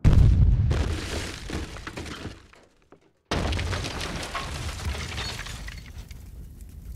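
A sudden loud crash with a heavy boom, dying away over about two and a half seconds. About three seconds in, a second burst of rough, crackling noise starts abruptly and fades slowly.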